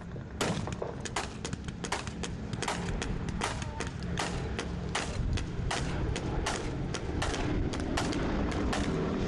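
Staged battle gunfire: irregular shots, two or three a second, starting about half a second in. Under it, the drone of a B-17 Flying Fortress's four radial engines grows louder as the bomber comes overhead.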